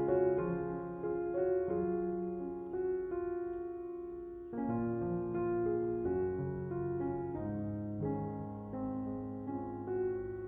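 Slow instrumental piano music, with held notes and chords. It softens just before the middle, then a new phrase comes in.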